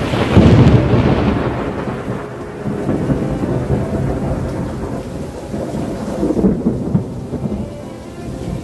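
Loud thunder from a lightning strike, peaking sharply about half a second in and then rolling on in a long rumble with a second swell about six and a half seconds in, over steady heavy rain.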